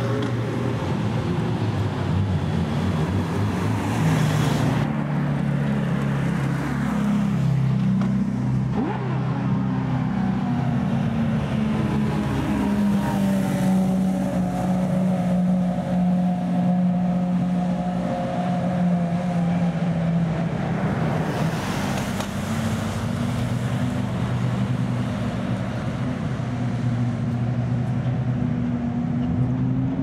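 Sports and racing car engines running at low revs in a pit lane: a steady low engine drone whose pitch drifts slowly, briefly brighter about four seconds in and again about twenty-two seconds in.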